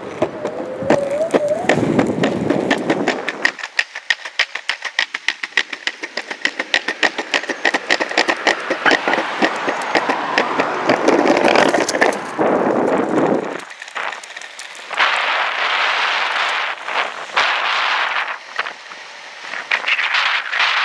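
Genesis Hellfire G2 hub-motor electric skateboard rolling fast over a concrete sidewalk: its wheels rumble and clack over the slab joints in a rapid run of clicks, with a brief rising whine about a second in. Wind rushes over the microphone in the later part.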